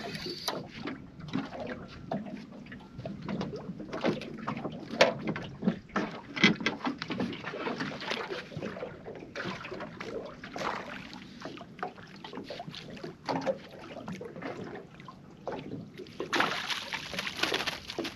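Irregular knocks and clatter of gear and footsteps in a small fishing boat while a fish is played and a landing net is readied, with water lapping at the hull. About sixteen seconds in, a louder spell of splashing as the net goes into the water and the fish is brought to it.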